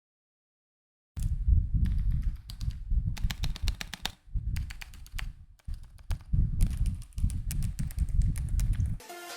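Typing on a mechanical keyboard: a dense, irregular run of key presses and releases, starting after about a second of total silence.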